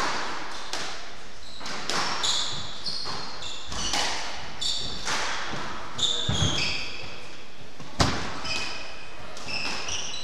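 Squash rally: the ball cracking off rackets and the court walls about once a second, the loudest hit about eight seconds in. Between the hits, shoes squeak in short high chirps on the wooden court floor.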